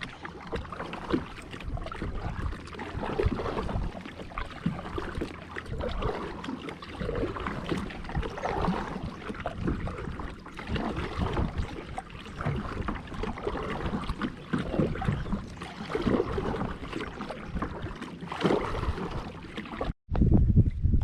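Water splashing and lapping around a kayak, with a fluctuating low rumble of wind on the microphone; the sound drops out for a moment near the end.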